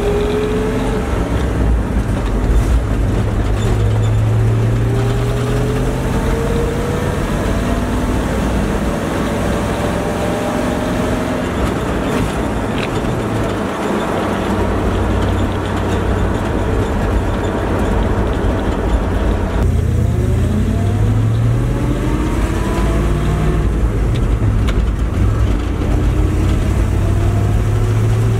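1972 Dodge D100 pickup's engine and exhaust heard from inside the cab while driving, the engine note climbing in pitch again and again as the truck accelerates through the gears. There is a gear change about two-thirds of the way through, and road noise runs underneath.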